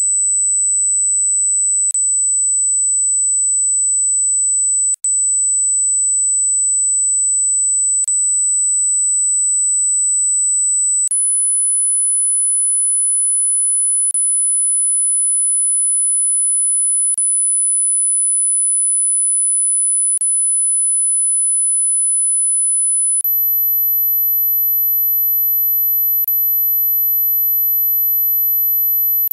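A pure, very high-pitched hearing-test tone, held steady, that steps up to a higher pitch twice, once about eleven seconds in and again about twenty-three seconds in. Faint clicks recur about every three seconds.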